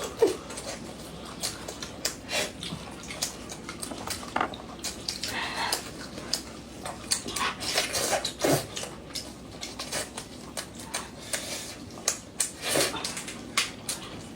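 A person eating fried sheep leg close to the microphone: wet chewing and lip-smacking with many quick clicks, and the odd clink of dishes or cutlery.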